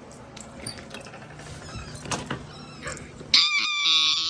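A loud high-pitched squeal starts suddenly about three seconds in, held and slowly falling in pitch; before it there is only faint background noise with a few light clicks.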